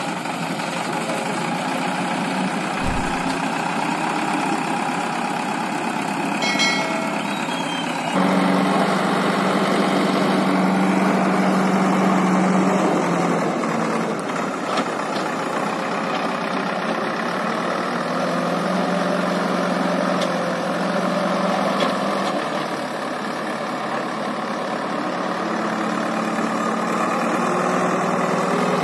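Diesel engine of a JCB 3DX backhoe loader running as its front loader scoops manure, louder from about eight seconds in, its revs rising and falling under the hydraulic load.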